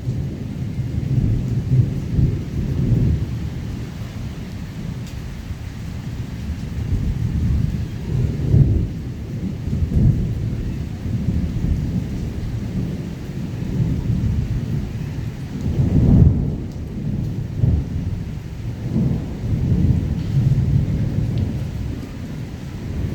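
Thunder rumbling on and off over steady heavy rain, the deep rumble swelling and fading several times, loudest about sixteen seconds in.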